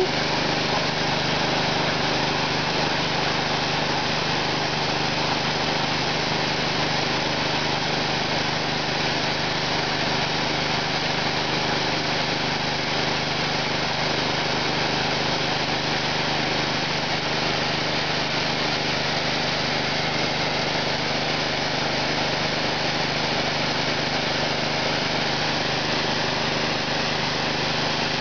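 Pressure washer running steadily: the even drone of its small engine under the hiss of the high-pressure spray.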